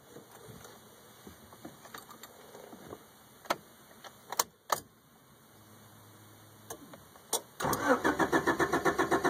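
Starter motor cranking the 1991 Honda CR-X Si's D16A6 1.6-litre four-cylinder engine in an even, rapid chug of about seven or eight beats a second without it catching, on a car that has not been started in a while. A few sharp clicks come before the cranking begins.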